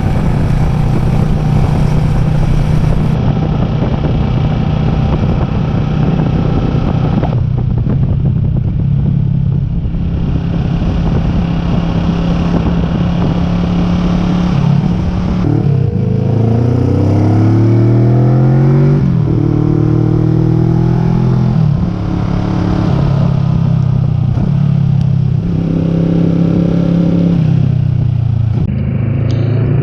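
Kawasaki Vulcan S 649 cc parallel-twin engine running at road speed under a steady rush of wind. About halfway through it drops a moment with a gear change, then climbs steeply in pitch as the bike accelerates, before settling back to a steady note.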